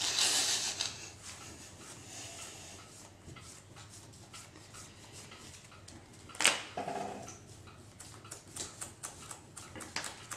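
Sleeved trading cards being handled and shuffled in players' hands: a soft rush at the start, light irregular clicking, and one sharp tap about six and a half seconds in.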